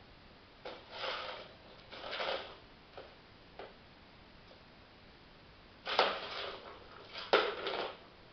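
A chihuahua pawing and shoving a plastic cat track toy across a laminate floor: a few short bursts of scraping and rattling with small clicks between, the loudest two about six and seven seconds in.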